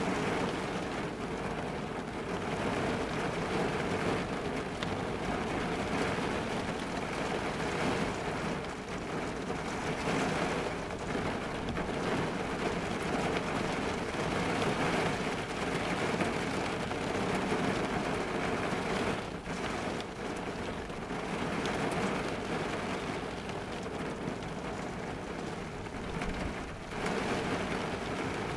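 Heavy rain drumming steadily on the roof and windows of a car, heard from inside the cabin.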